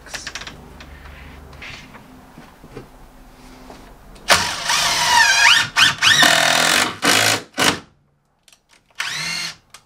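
Cordless drill driving screws through a door jamb. The motor starts about four seconds in and runs in a long spell whose pitch sags under load and climbs again, then runs once more, briefly, near the end.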